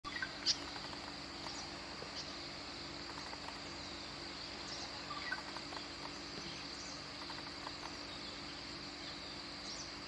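Outdoor ambience of a steady, high-pitched insect drone, with a faint low steady hum beneath it. A few short bird chirps break in, the sharpest about half a second in, others scattered through.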